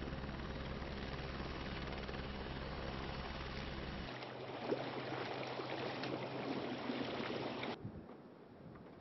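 A steady engine drone with a rushing noise over it. The low hum drops out about four seconds in, leaving the rushing noise, and the sound falls away about eight seconds in.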